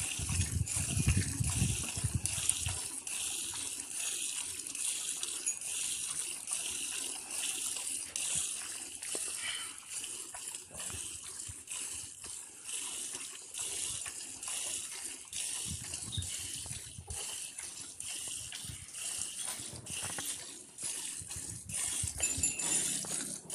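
Gir cow being milked by hand into a steel pot: a rhythmic run of squirts of milk hissing into the milk already in the pot, one squirt for each squeeze of the teat.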